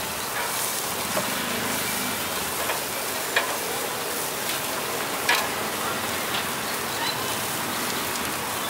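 Skewers of beef and pork sizzling over a charcoal grill, a steady hiss with a scatter of faint crackles and a few sharper clicks, the loudest about three and a half and five and a half seconds in.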